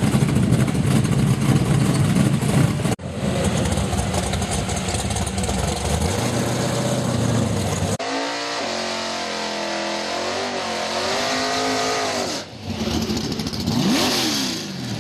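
Drag-race car engines running and being revved, in a few short clips. One engine's pitch swings up and down in the middle, and near the end another revs up sharply and drops back.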